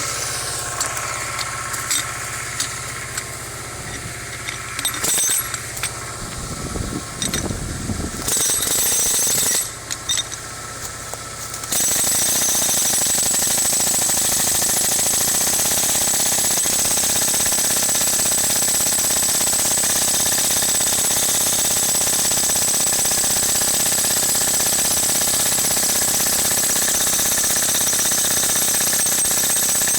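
Jackhammer hammering: stop-and-go at first, in short bursts over a running engine hum, then about twelve seconds in it settles into steady, unbroken hammering.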